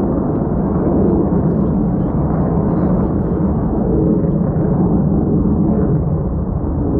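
Distant jet roar from the Black Eagles' T-50 trainers' turbofan engines, a steady low rumble.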